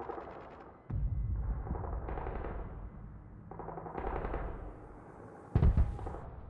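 Gunfire sound effects: several bursts of rapid shots with heavy low booms, each starting suddenly. The loudest burst comes about five and a half seconds in.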